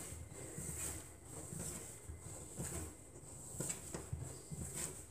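Hands kneading a soft whole-wheat sourdough dough on a countertop: faint, soft thuds and squishes about once a second as the dough is pressed and folded.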